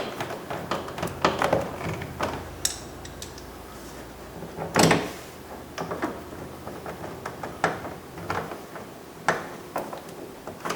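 Clicks and knocks of hand work on a plastic car door panel as Phillips screws are driven back in, with one louder knock about five seconds in.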